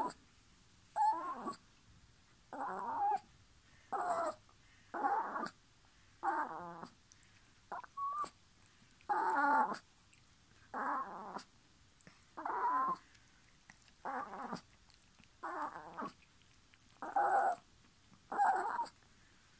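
Long-haired Chihuahua whining over and over, about one short wavering cry every second and a half: it is demanding its breakfast.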